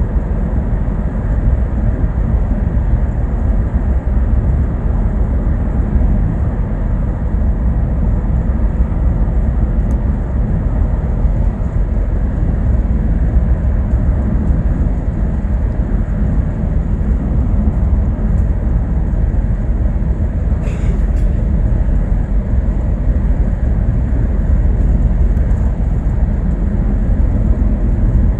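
Steady low rumble of a bus in motion, heard from inside the passenger cabin. A brief click sounds about three-quarters of the way through.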